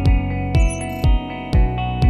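Background music with a steady beat and plucked-string melody.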